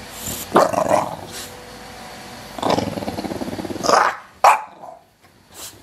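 English bulldog growling in bouts: a short one about half a second in and a longer, rough, pulsing one starting about two and a half seconds in, followed by a brief sharp sound a little after four seconds.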